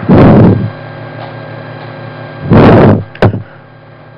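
Two loud breaths into a close microphone, each about half a second long, the second followed by a sharp click. A faint steady mains hum runs underneath.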